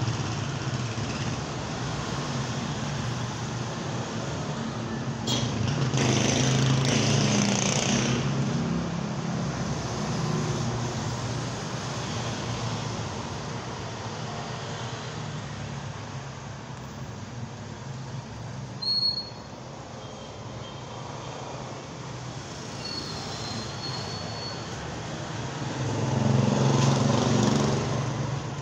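Street traffic: a steady engine hum from road vehicles, swelling as vehicles pass close by about six seconds in and again near the end.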